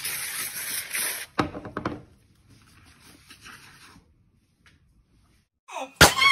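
Aerosol foam can spraying with a steady hiss for about a second, followed by a few faint short sounds and then near quiet. Near the end, a loud high call that falls in pitch starts abruptly.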